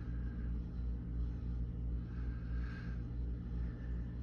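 Steady low mechanical hum, with a few faint, soft higher sounds over it.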